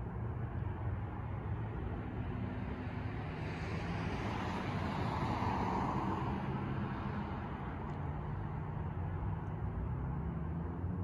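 A car passing on the street: its tyre and engine noise swells to a peak about halfway through and then fades away, over a steady low rumble.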